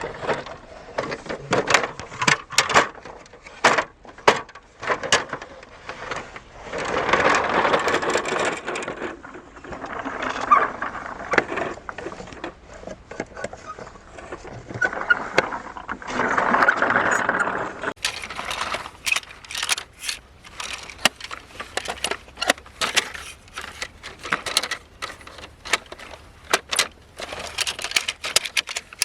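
Die-cast toy vehicles being handled, with many quick clicks and knocks of small metal and plastic parts. Three stretches of steadier noise, each a second or two long, come in among them.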